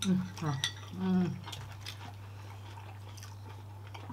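A couple of short voiced sounds from a person at the table in the first second and a half, then quiet eating with faint spoon and plate clicks over a steady low hum.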